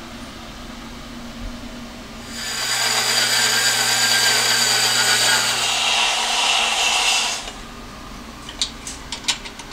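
Vertical band saw cutting through metal exhaust tubing for about five seconds, the blade rasping over a steady motor hum, then winding down. A few light metal clinks follow near the end as pipe pieces are handled.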